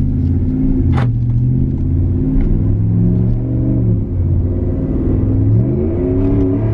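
A Ram 1500's 5.7-litre Hemi V8 accelerating under load through a Flowmaster American Thunder dual cat-back exhaust. The engine note holds, drops at a gear change about two-thirds of the way through, then climbs steeply again near the end.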